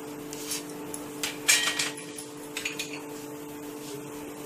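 A few short clinks and scrapes of a metal spoon as potato filling is scooped and spooned onto a dosa on a non-stick tawa, the loudest about a second and a half in, over a steady low hum.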